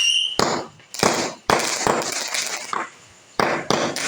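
Fireworks going off: a rapid, irregular series of sharp bangs, about seven in four seconds, each with a short trailing tail.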